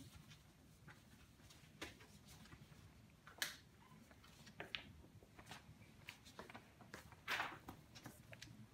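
A quiet room with a low hum and a few faint, irregular clicks and rustles: footsteps on a tiled floor and a sheet of paper being handled. The loudest are a sharp click about three and a half seconds in and a longer rustle about seven seconds in.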